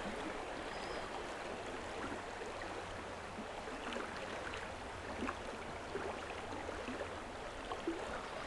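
Creek water rushing steadily over a shallow riffle, an even wash with a few faint clicks scattered through it.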